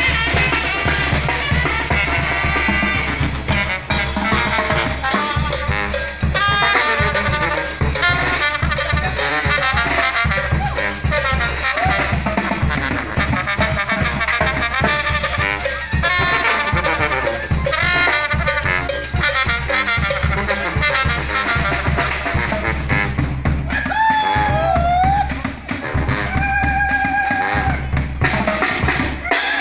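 Small Mexican street banda (tambora) playing live: trumpets, trombone, clarinets and sousaphone over a bass drum with cymbal and snare drums. Near the end the full band thins briefly to a few held and sliding wind notes.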